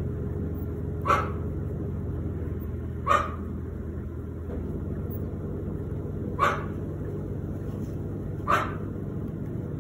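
Short, sharp dog yips, four of them spaced two to three seconds apart, over a steady low hum.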